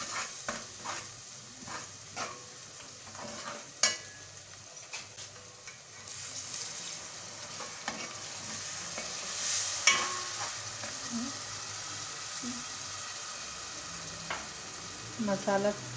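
Onion-and-spice masala frying in oil in an aluminium pot, sizzling while a spoon stirs it. The spoon knocks and scrapes against the pot in scattered clicks over the first few seconds, then the sizzle carries on steadily: the masala being bhuna, fried down until soft.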